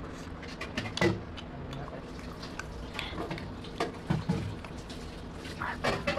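Close-up eating sounds of mutton curry and rice eaten by hand: wet chewing and lip smacks, fingers squeezing curry-soaked rice and meat, with a sharp smack about a second in and more near the end as a handful goes into the mouth.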